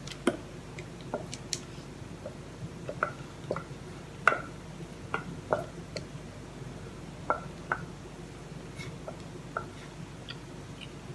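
Banana cake batter being poured and scraped out of a stainless steel saucepan into a paper-lined baking tin: scattered soft taps and light metallic clinks, a few of them ringing briefly.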